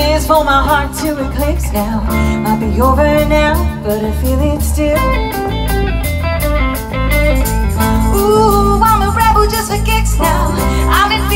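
Live band playing through a PA: a woman singing over electric guitars, keyboard and a drum kit, with a steady bass line and regular drum beats.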